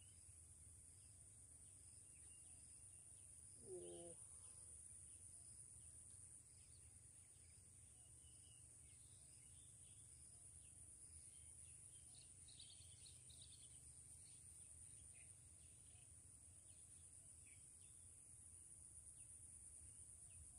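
Near silence: faint outdoor ambience with a steady high-pitched insect drone and scattered faint bird chirps, plus one brief faint call-like sound about four seconds in.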